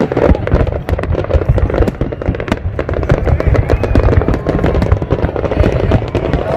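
Large fireworks display: a dense, rapid, irregular crackle of many bursts and bangs over a deep rumble.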